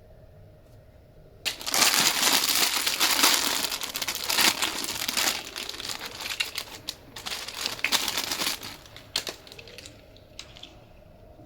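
Loud crinkling and crackling, as of something being crumpled or handled, starting about a second and a half in and thinning out near the end.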